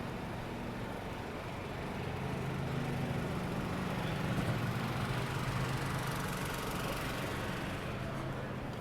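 A vehicle engine running at idle, a steady low hum that grows louder through the middle and eases near the end, over general city traffic noise.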